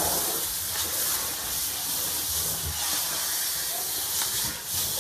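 Hot water jetting out of a leaking pipe under a bathroom sink vanity: a steady, unbroken hiss of spray.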